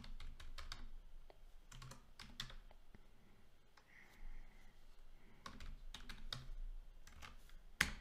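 Typing on a computer keyboard: irregular keystroke clicks in short runs, with one sharper keystroke near the end.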